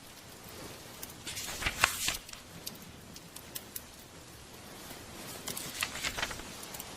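Scattered sharp crackles over a steady soft hiss, thickest in two spells of about a second each: one starting about a second and a half in, the other near six seconds.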